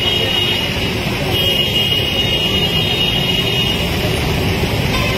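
Road traffic noise at a busy roadside, with a high steady tone that stops about a second in and sounds again from about a second and a half to nearly four seconds in.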